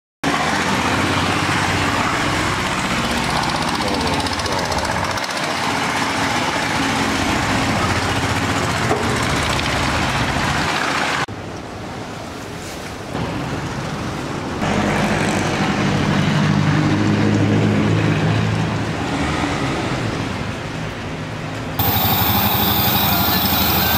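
Motorboat engine running with rushing wind and water noise, heard across several abruptly cut sections. The engine drone is strongest in the middle.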